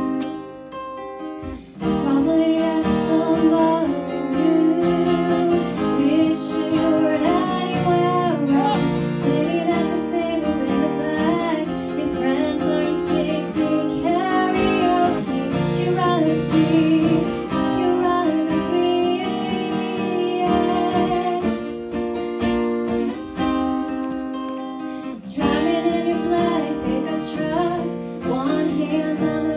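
Live acoustic music: two acoustic guitars strumming chords while a young woman sings the melody. The singing comes in about two seconds in.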